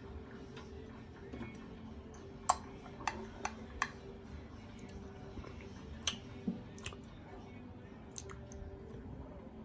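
Light clinks of a metal spoon against a glass espresso cup while the espresso is stirred: about seven sharp taps, scattered and irregular.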